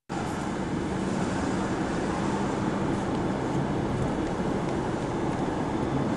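Steady engine and road noise of a car being driven along a city street, heard from inside the cabin. It cuts in suddenly at the very start.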